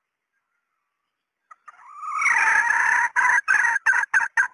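Female red junglefowl calling: a short note about a second and a half in, then one long drawn-out call that swells, breaking into a run of short clucks that come quicker and shorter.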